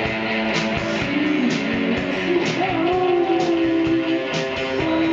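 Live rock band playing: electric guitar and drum kit keeping a steady beat of about two hits a second, with a long, bending melody line held over it.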